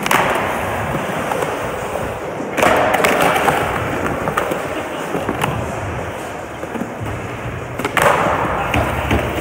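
Skateboard wheels rolling across a smooth concrete floor, with three sudden clacks of the board: near the start, about two and a half seconds in, and about eight seconds in.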